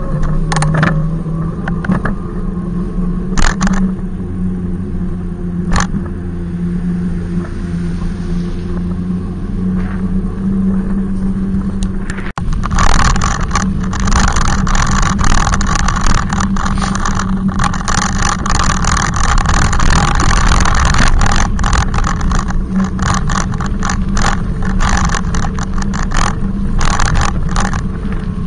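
E-bike electric motor running under load with a steady low hum, loud, together with riding noise. About twelve seconds in, the sound turns rougher and louder with many clicks and rattles.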